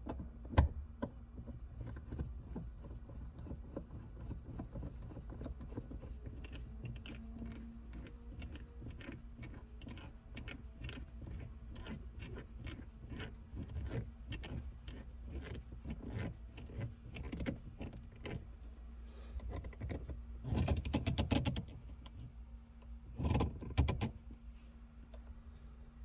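Hands fitting a replacement shift knob onto a manual car's gear lever: a stream of small clicks, taps and rattles, with two louder bursts of rattling near the end.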